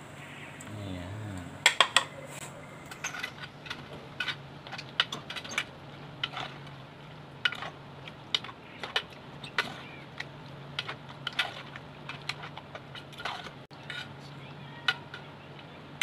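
Metal spoon clinking and scraping against an aluminium cooking pot while chicken pieces are stirred in coconut milk: irregular sharp clinks, the loudest about two seconds in, over a steady low hum.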